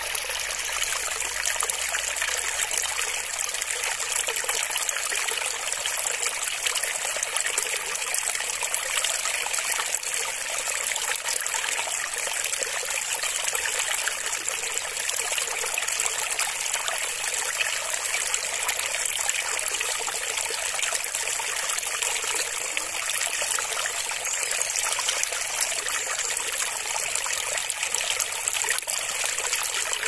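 Shallow rocky stream trickling and babbling over and between stones, a steady close-up rush of water that is bright and hissy, with little low rumble.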